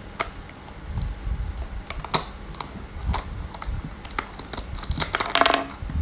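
Plastic toy knife tapping and knocking on a plastic cutting board while a toy velcro banana is cut: scattered clicks and taps, with a rapid run of crackly clicks about five seconds in as the velcro halves pull apart.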